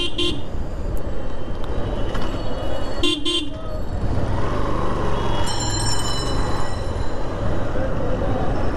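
Road traffic noise: a steady rumble of engines and tyres, with short vehicle horn beeps at the start and a quick double beep about three seconds in, and a thin high-pitched tone in the middle.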